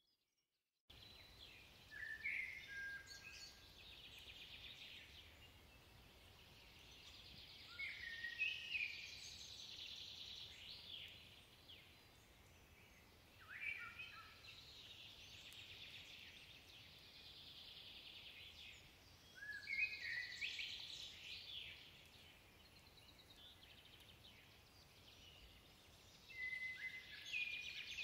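Common blackbird singing: five phrases about six seconds apart, each a low fluted warble running into higher, squeakier twittering.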